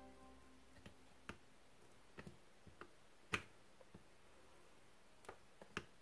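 Faint, scattered small clicks and taps, about nine in all with the sharpest about three seconds in, from a soldering iron tip working against a stained glass piece held in pliers.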